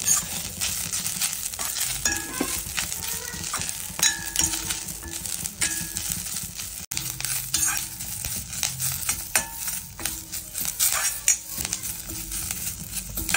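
Metal spatula stirring and scraping moringa leaves as they roast in a stainless steel pan, in quick, irregular scraping strokes with the rustle and sizzle of the leaves on the hot metal.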